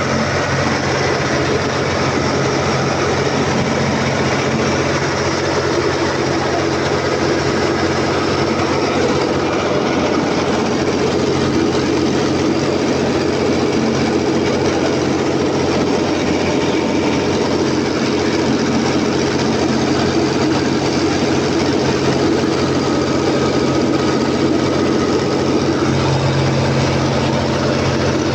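Freshly top-overhauled Volvo Penta TAD1341GE genset diesel engine running steadily and loudly, its low hum getting a little stronger near the end.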